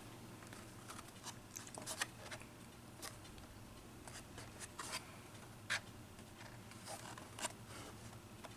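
Faint handling noises from packaged Hot Wheels die-cast cars being picked up and set down: scattered light clicks and rubs of plastic blister packs and card, over a low room hum.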